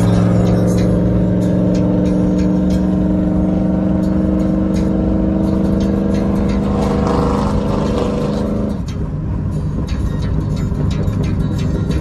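Pickup truck's engine droning steadily at freeway cruising speed, heard inside the cab over road and wind noise. About nine seconds in the engine tone drops away suddenly, leaving mostly road noise.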